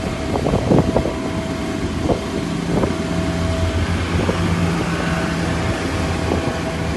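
A steady engine drone with a constant thin whine above it. A few short knocks come in the first second or so.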